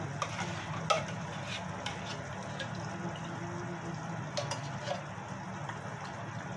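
A metal spoon scraping and tapping inside a tin can as thick coconut milk is scooped out into a simmering pan of curry, with light sizzling and a steady low hum from the stove. The sharpest tap comes about a second in, and a few more come together around four and a half seconds.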